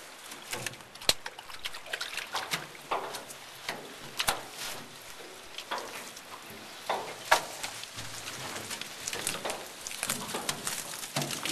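Wet gillnet being hauled by hand over the side of a metal skiff, with water splashing and dripping and irregular taps and knocks as the net, floats and salmon hit the hull. A sharper knock comes about a second in and another about seven seconds in.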